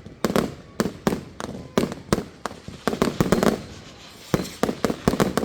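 Fireworks going off in an irregular, rapid run of sharp bangs and crackles, several a second, bunched in clusters with short gaps between.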